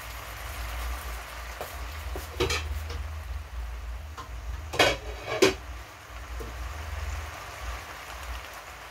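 Spinach frying in olive oil in a pan, sizzling steadily, with a few short knocks about two and a half seconds in and twice around five seconds in.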